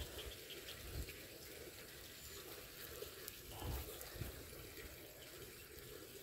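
Faint water trickling in a small irrigation ditch, with a few soft low bumps about a second in and again near the middle as the fishing rod is handled and cast.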